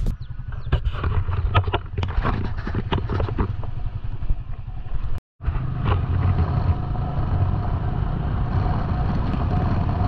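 Motorcycle running while being ridden, with many short rattling knocks from the bumpy dirt track in the first half. The sound drops out briefly about five seconds in, then continues as a steadier engine-and-road rumble on smooth pavement.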